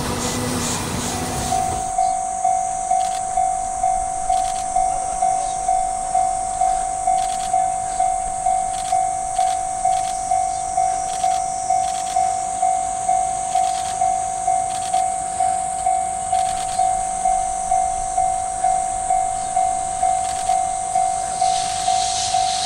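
Railway level-crossing warning bell ringing about twice a second, one repeated tone with each strike fading, starting a second or so in, over a steady high hiss.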